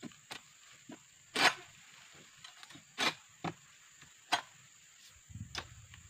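Irregular sharp cracks and knocks of an egrek, a sickle blade on a long pole, being hooked and pulled against an oil palm frond stalk, the loudest about a second and a half in. A dull low thump follows near the end.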